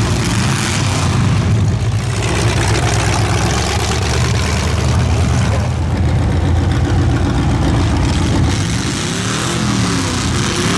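Several big demolition derby cars' engines running together, a steady low rumble of idling engines with revs that rise and fall near the end.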